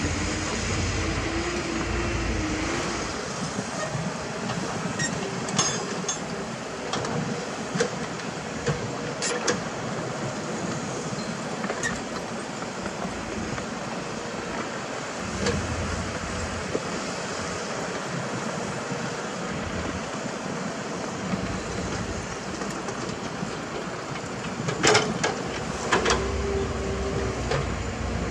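Diesel engines of an excavator and dump trucks running steadily, with scattered sharp metal clanks and knocks, the two loudest near the end.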